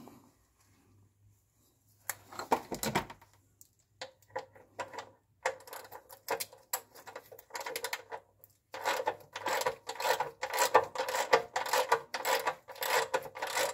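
Oil filter being hand-turned with a shop towel for grip: short rubbing, scraping strokes, scattered at first, then coming quickly at about four or five a second in the last few seconds.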